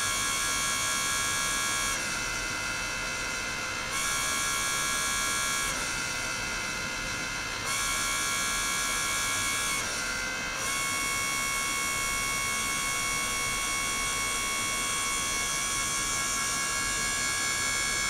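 High-pitched electronic whine from an ultrasonic transducer system driving a water-filled glass bottle on a stainless-steel tank, made of several steady tones at once. The mix of tones shifts in steps about every two seconds, then holds steady from about ten and a half seconds in.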